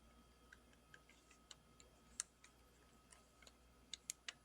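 Near silence broken by faint, irregular small clicks, with a few slightly louder ones close together near the end.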